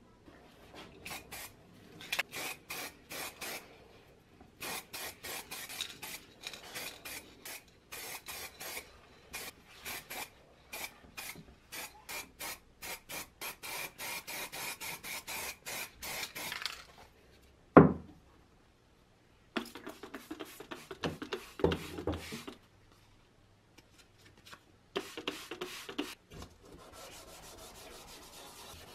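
Rasping back-and-forth strokes of a part being abraded by hand, about two strokes a second, in runs with short pauses. A single loud knock comes about 18 seconds in.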